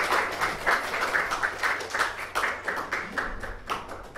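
A small audience applauding, the clapping thinning out and fading toward the end.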